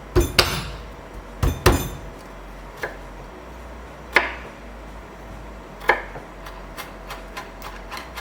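Kitchen prep work on shrimp being peeled: a few sharp, separate knocks on a hard surface, loudest in the first two seconds, then quicker light clicks near the end.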